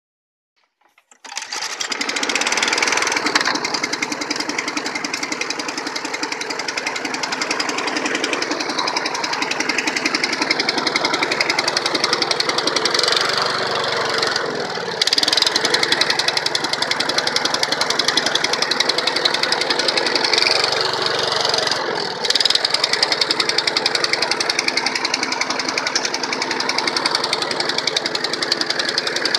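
A 4 HP lawn mower's single-cylinder petrol engine catches from cold about a second in and then runs steadily with a rapid firing beat, sagging briefly in speed twice before picking back up.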